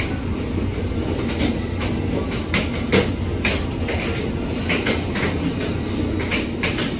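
Amtrak passenger coaches rolling past at speed: a steady rumble of wheels on rail, with irregular sharp clicks as the wheels cross the track.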